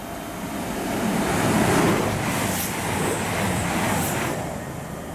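A train passing through at speed: a rush of wheel and air noise that builds over about two seconds, holds, and fades away about four seconds in.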